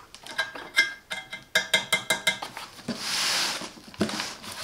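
Clattering, clicking and knocking of the generator's plastic casing as it is handled and turned around on its cardboard box, with a short swish about three seconds in and one more knock near the end.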